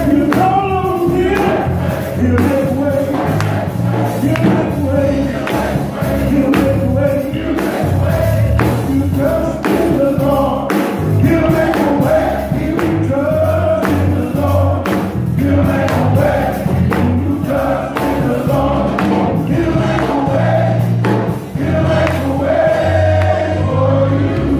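Men's gospel choir singing with keyboard accompaniment and a strong bass line, with hand claps on the beat.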